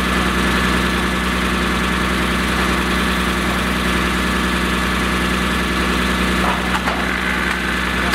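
Fire engine's engine running steadily at a constant speed, a low hum with a steady high whine on top, with a brief scuffle of noise about six and a half seconds in.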